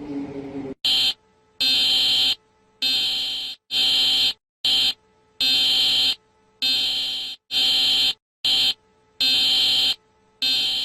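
Emergency alert alarm buzzer sounding a harsh, high electronic tone in a repeating pattern: one short beep followed by three longer beeps, three times over. A low falling tone fades out just before the first beep.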